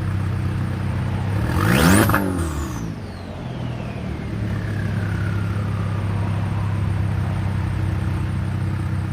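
2014 Volkswagen Jetta's turbocharged four-cylinder engine running with a steady low drone, likely with its downpipe off and exhaust open. It is revved once about two seconds in, then a high whistle falls slowly in pitch over the next few seconds.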